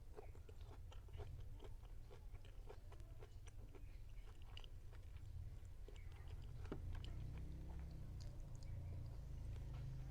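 A person chewing food close to the microphone: a run of small clicks and crunches that thins out after about seven seconds, over a low steady hum.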